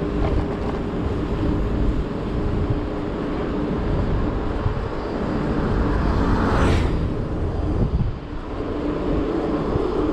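Segway Ninebot F2 Pro electric scooter riding uphill at about 27 km/h: steady wind rumble on the microphone and road noise with a low hum, and a brief louder whoosh about two-thirds of the way through.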